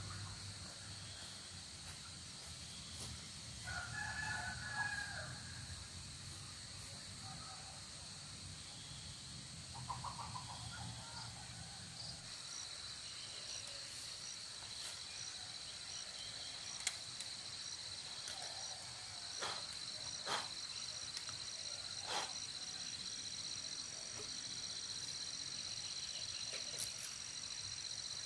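A rooster crows about four seconds in, and a shorter call follows near ten seconds, over a steady high-pitched insect drone that grows louder about halfway through. A few sharp clicks come in the second half.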